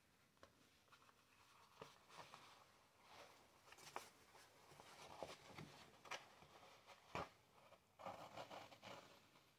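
Faint rustling and scratching of heavy art paper as mohair-silk yarn is drawn through it with a darning needle and the fingers press the sheet, with scattered soft clicks and one sharper tap about three-quarters of the way through.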